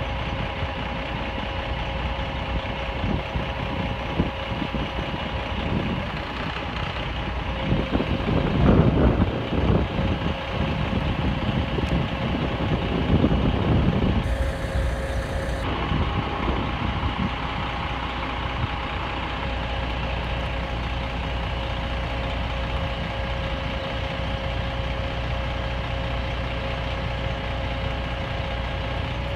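Fire truck's engine running with the aerial ladder's hydraulics at work as the ladder is swung down, with a steady whine over the rumble. It grows louder and rougher for several seconds in the middle, then settles back.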